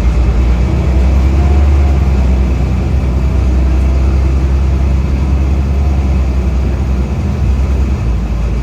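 Optare Solo bus heard from on board while moving: a steady low engine drone, with a faint wavering whine above it in the first few seconds.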